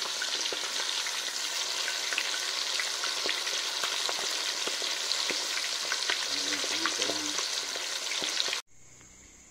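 Marinated quail deep-frying in a black iron kadai of hot oil: steady sizzling and bubbling with scattered crackles, as the pieces are turned with a wire-mesh skimmer. The sound cuts off abruptly near the end.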